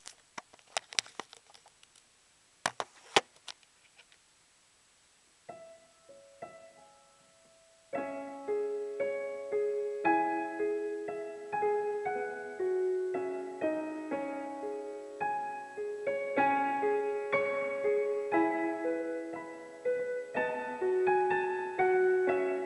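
A few sharp clicks and knocks, then a few single piano notes, and from about eight seconds in a piano played continuously, with a melody over chords.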